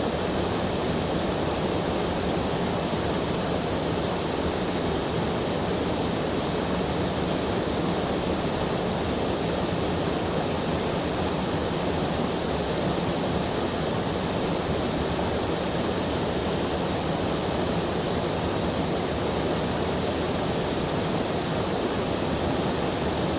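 Swollen, fast-flowing river rushing steadily, a dense continuous roar of water without breaks.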